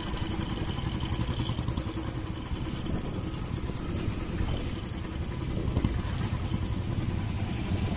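Motorcycle engines running steadily while riding slowly through street traffic.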